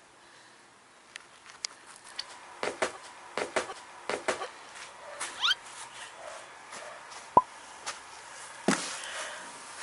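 Footsteps of a person hopping across artificial turf: a run of light thuds, mostly in quick pairs, with scattered clicks around them and a short rising chirp about halfway through.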